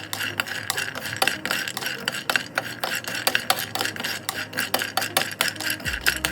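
Nuts clattering against a dish as they are stirred with a spoon: a dense, irregular run of quick clicks and clinks.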